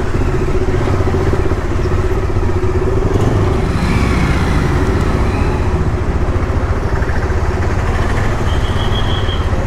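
Motorcycle running on the move: a steady engine drone under continuous road and wind noise, with a short high-pitched beep near the end.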